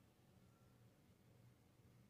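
Near silence: faint room tone with a steady low hum.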